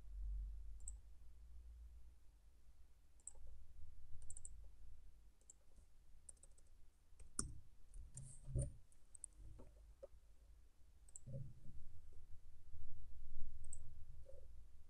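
Scattered light clicks of a computer mouse, irregularly spaced, over a low steady hum.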